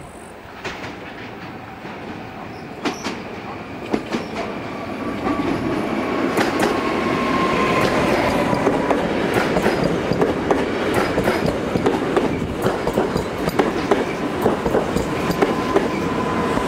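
Newag Impuls electric multiple unit coming in and running close past, getting louder about five seconds in, its wheels clicking over rail joints and points, with a steady thin whine over the rumble.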